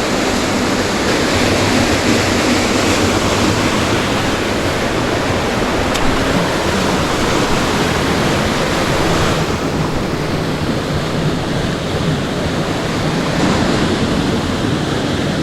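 Loud, steady rush of fast-flowing creek water, with no break, softening a little in the highs about nine seconds in.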